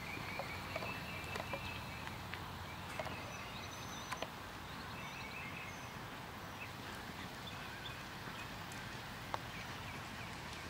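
Open-air arena ambience: a steady low rumble and hiss, with faint bird chirps in the first second or so and a few scattered light knocks. A horse trotting in sand is under way, but its hoofbeats hardly stand out.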